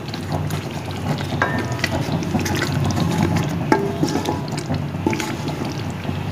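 Spice masala frying in oil in a pot, sizzling and bubbling, fried until the oil has separated out. A few short clinks of the stirring spoon against the pot, about a second and a half, three and a half and five seconds in.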